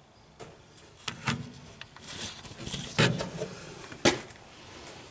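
Handling noise: four short knocks, spaced a second or so apart, with rustling in between, as the compartment of the homemade hen house is handled around its hessian curtain.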